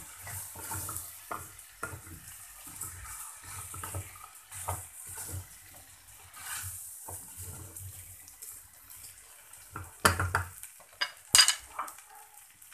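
Wooden spoon stirring rice and diced vegetables in a metal saucepan, scraping and knocking against the pan in irregular strokes, over a faint sizzle of the rice frying before the water goes in. A few sharper knocks come near the end.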